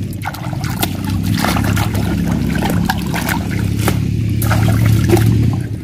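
Shallow muddy water sloshing and splashing in irregular strokes as a person wades and moves a woven bamboo fishing basket through it, over a steady low rumble; it cuts off abruptly near the end.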